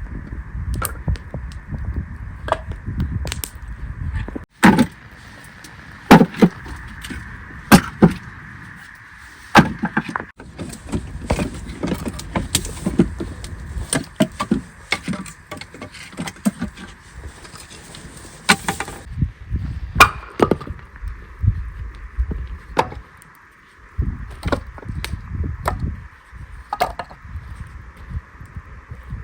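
An irregular series of sharp knocks and cracks, like hard objects being struck or broken, with a low wind rumble on the microphone that comes and goes.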